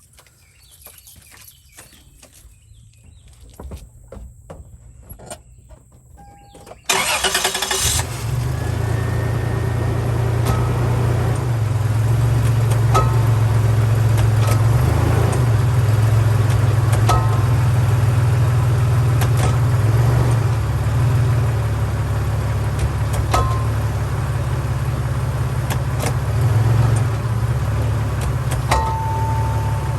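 A 2000 Toyota Tacoma's engine starts about seven seconds in and then runs steadily, with a few short knocks every few seconds: the driveline clunk that the owner suspects is a worn differential bearing.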